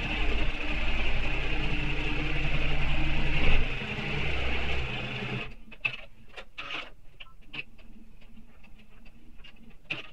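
Electric sewing machine running steadily as it stitches a seam along a zipper, easing off slightly near four seconds in and stopping about a second later. After that, scattered light clicks and rustling as the fabric is handled.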